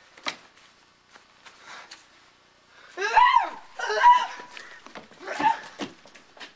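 High-pitched wordless human vocalising, like squeals and giggling, in a few bursts; the loudest come about three to four seconds in, with a shorter one near the end.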